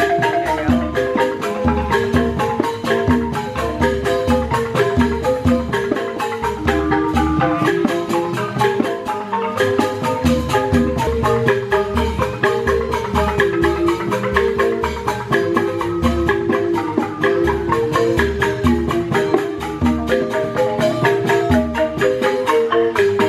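Balinese gamelan ensemble playing: bronze-keyed metallophones ringing rapid mallet patterns over regular low strikes of a kendang hand drum.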